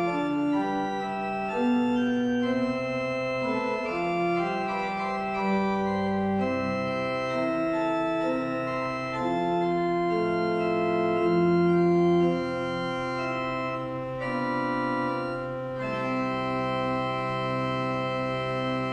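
Church organ playing the postlude: several voices of held notes moving chord to chord about once a second, ending on a long sustained final chord from about three seconds before the end.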